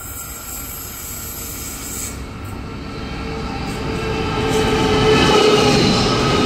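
Diesel-hauled freight train approaching and passing close by. The rumble of the locomotive engines and wheels on the rails grows steadily louder and levels off as the lead locomotive draws level about five seconds in.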